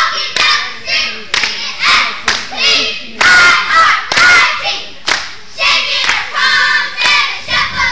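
Cheerleading squad of girls shouting a cheer in unison, a rhythmic chant of about two shouted beats a second, with two longer held shouts a little past three and four seconds in.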